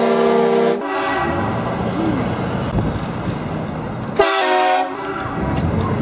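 Truck-mounted train horn blasting twice: a chord of several steady notes for about a second at the start, then a shorter blast about four seconds in.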